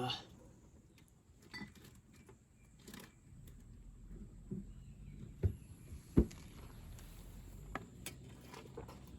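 Scattered light clicks and knocks of things being handled, with two sharper knocks about five and a half and six seconds in, over a low steady hum.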